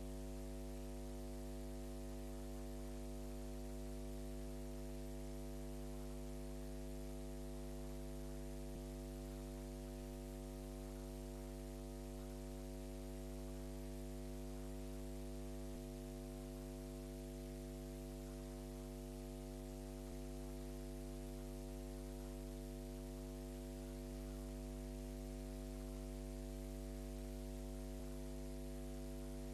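Steady electrical mains hum with a buzzy stack of overtones and faint hiss, with no court or crowd sound.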